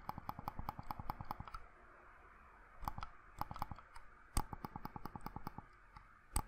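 Buttons of a Jelly Comb wireless mouse with silent switches, clicked quickly over and over, several soft ticks a second, in three runs with short pauses between them. The buttons are extremely quiet.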